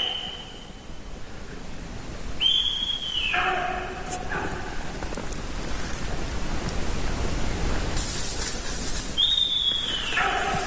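Sika deer whistling: two long calls, each a high whistle held for about a second that then drops steeply to a lower tone, over a steady hiss. Sika deer give these whistles when reacting to danger and to call to one another.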